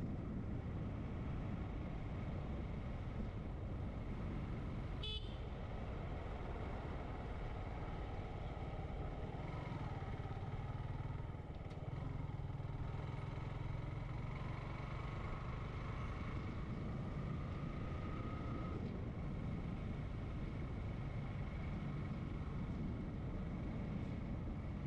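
Motorcycle engine running steadily with road and wind noise while riding. The engine note strengthens and rises slowly through the middle stretch, and there is a brief click about five seconds in.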